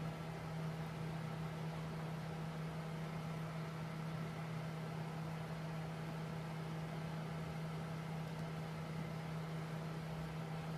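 Steady low machine hum that does not change, with fainter higher tones above it.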